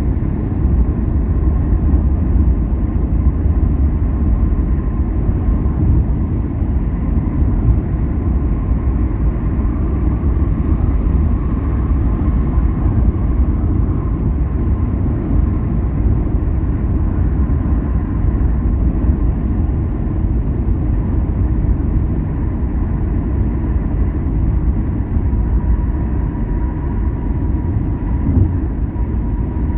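A car on the move: a steady low rumble of engine and tyres on the road, with a faint steady hum above it.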